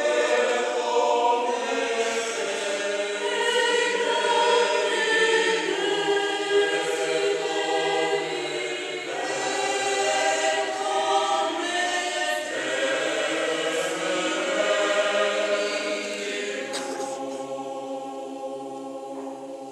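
Mixed choir of men's and women's voices singing in harmony. About three-quarters of the way through they settle on a long held chord that slowly fades, the closing chord of the piece.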